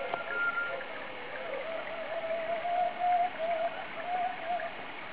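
Music: a single slow melody line with a wavering vibrato, in short phrases that break off and resume, over a steady hiss.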